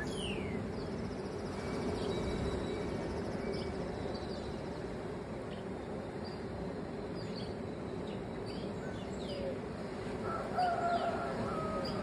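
Birds chirping and calling at dawn: short chirps and quick falling whistles scattered through, with one louder, lower call lasting about a second near the end. A steady rushing background runs underneath.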